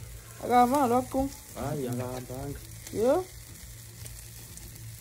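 Meat sizzling on a braai grill, a faint steady hiss. A person's voice sounds over it briefly about half a second in and again near two seconds, and a loud rising vocal sound comes about three seconds in.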